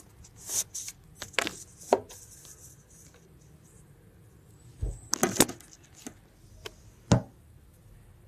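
Raw cow tripe being handled in a stainless steel sink: scattered wet slaps and knocks against the metal. They come in two clusters, about a second in and about five seconds in, with one sharp knock near the end.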